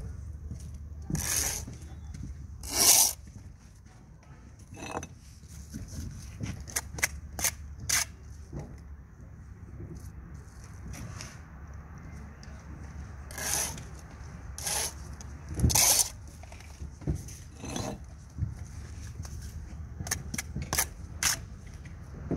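Steel brick trowel and blue engineering bricks: irregular short scrapes and taps as bricks are set into mortar and bedded down, over a low steady hum.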